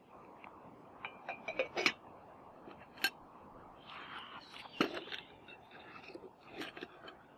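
Light metal clicks and clinks from a camping pot and its lid being handled with a spoon. There is a quick run of clicks, a single sharp tick, and then a stronger clink as the lid is lifted.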